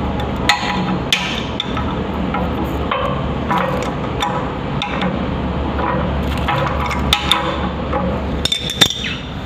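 Scattered sharp clicks and metallic knocks of hand tools on plumbing fittings during toilet inlet valve repair, with a cluster of clinks near the end, over a steady low hum.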